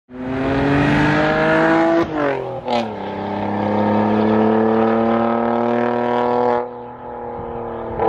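Car engine accelerating hard, its pitch climbing, then dropping at a gear change about two seconds in and climbing slowly again. The sound cuts off abruptly about a second before the end.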